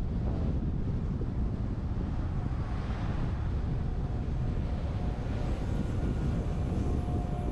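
Wind and road noise on a roof-mounted GoPro on a moving truck: a steady rush, heaviest in the low end. A faint steady whine joins about five seconds in.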